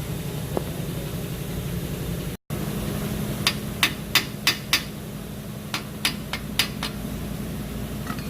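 Hand tool working a suspension bolt on a car's front end: sharp metallic clicks, about five at roughly three a second and then four more, over a steady low hum.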